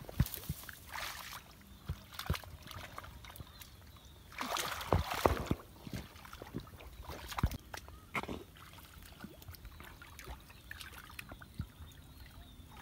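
Hands sloshing and splashing in shallow muddy water while groping through the mud for fish, in irregular small splashes, with a louder stretch of splashing about four to five seconds in.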